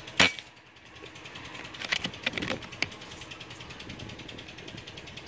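A PCP air rifle fires once just after the start, a single sharp crack. About two seconds later comes a quick run of metallic clicks as the action is cycled to load the next pellet.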